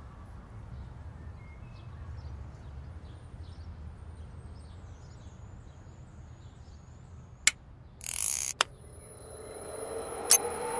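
Quiet low background, then sharp clicks and a short burst of noise, followed by a swelling sound with more clicks that builds toward the end: a time-rewind sound effect for a magic watch.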